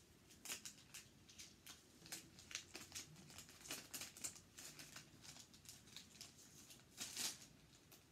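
Faint crinkling and rustling of a plastic packet being handled, a run of short irregular crackles with a louder flurry about seven seconds in.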